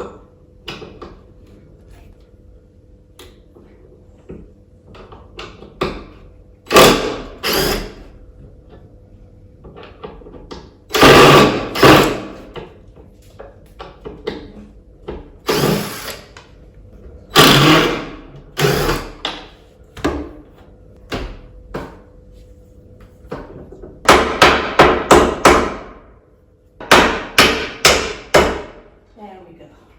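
Hammer blows on the old table's wooden parts, knocking out the old nails so the loose joint can be refitted. The strikes come in irregular groups, with quick runs of five or six blows near the end.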